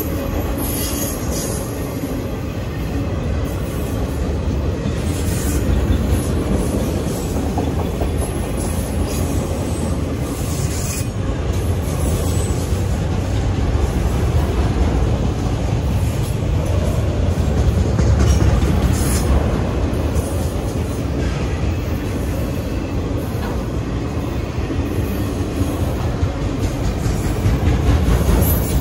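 Autorack freight cars rolling past at a grade crossing: a steady, loud rumble of wheels on the rails, with brief high-pitched wheel squeals several times.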